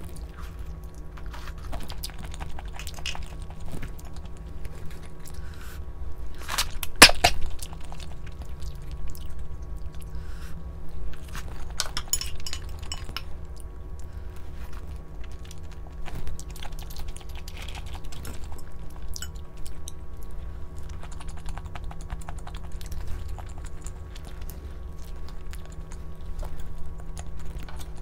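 Close-up eating sounds: chewing and small utensil and dish clicks, with a louder clatter about seven seconds in.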